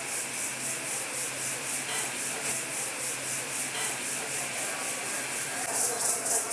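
A chorus of cicadas buzzing in a high, pulsing drone, about four pulses a second, growing a little louder near the end.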